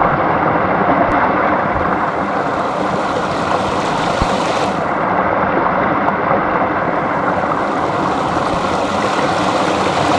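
Small stream of running water, a steady rushing and gurgling.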